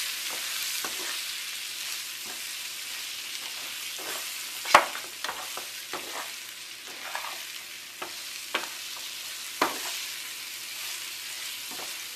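Amla segments frying gently in mustard oil in a non-stick frying pan, sizzling steadily while being stirred with a spatula. Scattered clicks and scrapes of the spatula against the pan, with two sharper knocks, one a little before halfway and one about three-quarters through.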